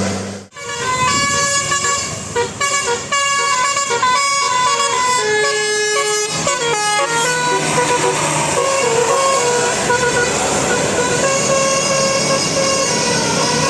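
Bus 'telolet' musical air horn (Basuri type) playing a quick tune of stepping notes, then holding longer notes over steady traffic noise.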